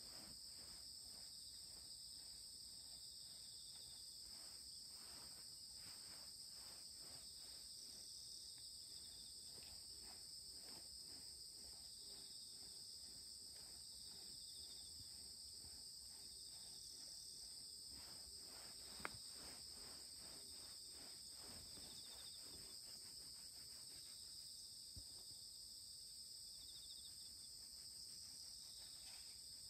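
Faint, steady high-pitched chorus of insects calling, with scattered soft ticks and one sharper click about 19 seconds in.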